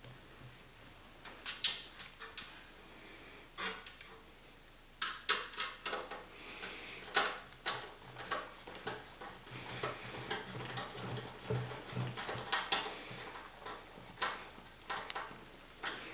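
Screws being driven by hand into a PC case: irregular small metallic clicks, clinks and scrapes of screwdriver, screws and case parts, spaced a second or two apart.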